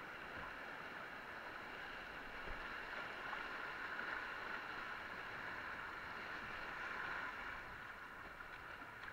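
Rushing whitewater of a river rapid heard from a kayak being paddled through it: a steady rush of water, swelling slightly around the middle, with the paddle dipping into the water.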